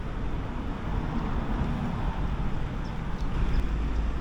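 Steady low outdoor rumble and hiss, with no clear cat calls standing out.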